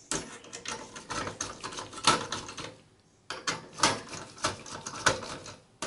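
Torx T15 screwdriver unscrewing the screws that hold a CPU heatsink and fan in a desktop PC: a run of quick clicks and small metal scrapes, stopping briefly about halfway through and then resuming.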